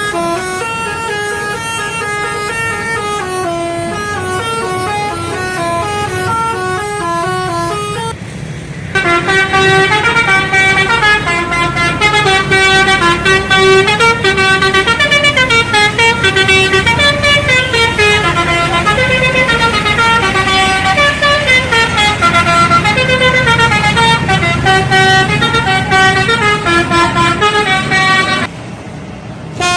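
Bus telolet horns, multi-tone air horns, playing quick tootling melodies with notes stepping up and down in rapid runs. It breaks off about eight seconds in, and a louder telolet melody follows and runs until just before the end, over a low vehicle rumble.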